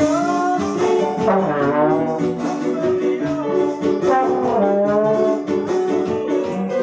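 Slide trombone playing a melody full of sliding rises and falls in pitch, over sustained electronic keyboard chords and acoustic guitar.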